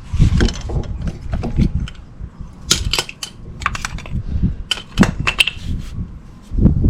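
Metal hand tools and brake parts clinking and clattering as they are handled, with a scatter of short clicks and knocks.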